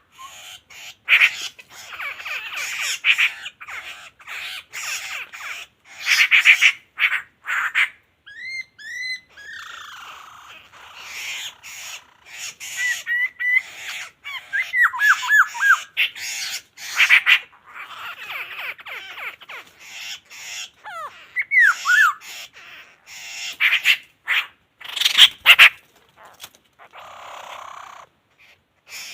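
Laughingthrushes calling: loud, harsh chattering bursts over and over, mixed with short whistled, slurred notes.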